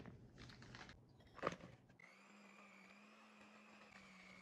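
Brown sugar tipped into a bowl of creamed butter with a rustling scrape and a knock. About two seconds in, an electric hand mixer starts and runs with a steady, faint hum, beating the butter and brown sugar.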